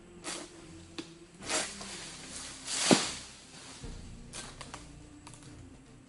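Oil palm being harvested with a long-poled sickle: rustling swishes and cracks from the fronds in the crown. About three seconds in comes the loudest sound, a swelling rush through the leaves that ends in a sharp thud as a cut piece of the crown falls and hits the ground.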